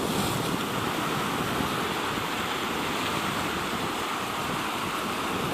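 Sea waves washing in, with wind, as one steady rush of noise.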